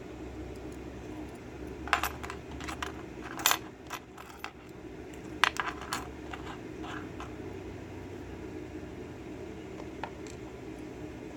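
Light metallic clicks and clinks of small brass lock pins and parts being handled and set down while a pin-tumbler lock is taken apart, in scattered groups, busiest about two to three and a half seconds in and again around five and a half seconds.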